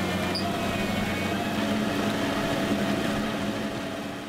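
Net bulb-lifting harvester at work: its rollers wind up the planting nets, lifting flower bulbs and soil out of the ground. A steady drone of the machinery over the rush of falling soil.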